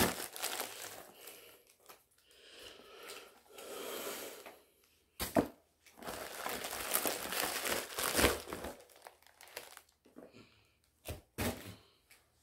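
White plastic shipping bag being crinkled and torn open by hand, in bursts of rustling. A sharp crack comes about five seconds in, and a few short clicks near the end.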